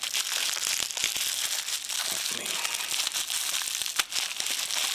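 Plastic bubble-wrap bag crinkling and rustling as it is handled, with a sharp click about four seconds in.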